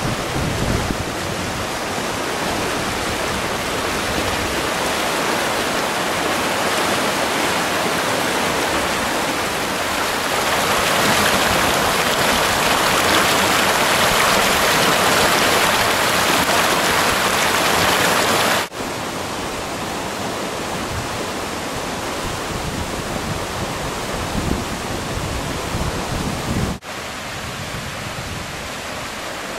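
Rushing water of a river running bank full with snowmelt, pouring over rocks in a continuous rush. It grows louder in the middle, then drops abruptly twice where the shot changes.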